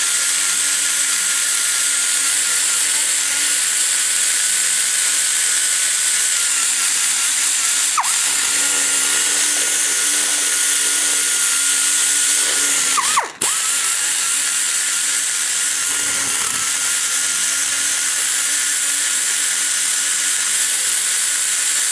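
High-speed die grinder with a rotary burr, shaping the exhaust valve guide boss inside an aluminium small-block Chevy cylinder head: a steady high whine over a hiss. The pitch sags briefly about 8 s in as the burr bites, and around 13 s in it sags, cuts out for a moment and starts again.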